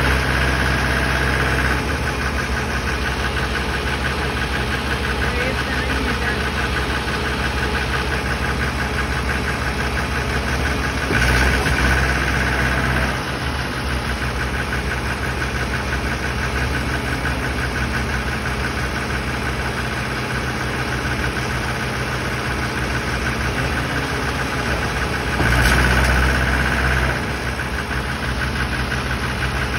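Tractor diesel engines running under load while one tractor tows a stuck tractor. The engine note gets louder three times for a second or two: at the start, about 11 seconds in and about 26 seconds in.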